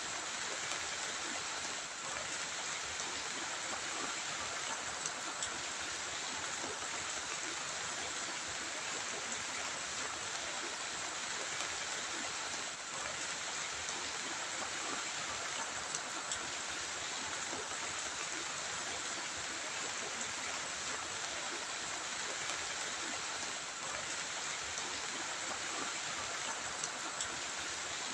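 Heavy rain falling in a steady, unbroken hiss.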